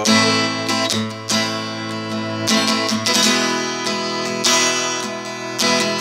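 Acoustic guitar strumming chords, each stroke ringing on until the next, about one stroke a second, with no singing: an instrumental passage between the sung verses of a song.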